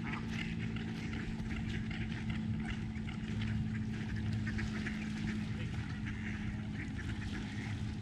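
Ducks quacking, many short calls in quick succession throughout, over a steady low rumble with a constant low hum.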